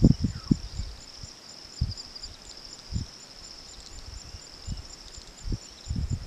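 Insects chirring steadily in the bush, a high, even trill with a faster pulse of about four beats a second over it. Brief low rumbles come and go beneath, the loudest right at the start and again near the end.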